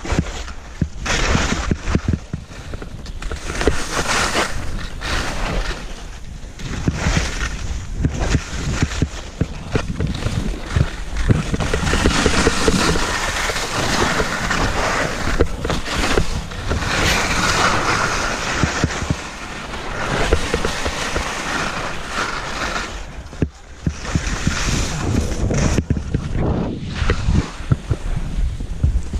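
Wind rushing over a helmet-mounted GoPro's microphone during a ski descent, mixed with skis scraping and hissing over snow. The noise swells and dips irregularly through the run.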